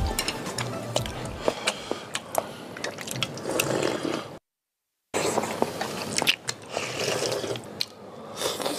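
People slurping and chewing strips of dried tofu in chicken broth: a run of wet smacks and short clicks, broken by a moment of dead silence about halfway.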